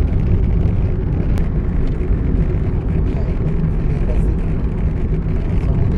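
Inside a Tata Tigor's cabin while driving a rough, broken ghat road: a steady low rumble of tyres, suspension and engine.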